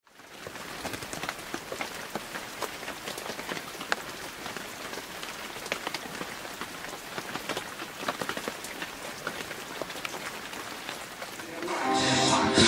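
Steady rain-like crackling hiss dotted with many small, sharp clicks: the sound effect of an animated ink-splatter logo intro. Music comes in near the end.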